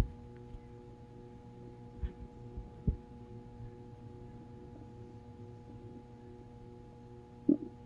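A steady hum of several held tones, with two short low sounds a few seconds in and, near the end, a brief gurgle of a growling stomach.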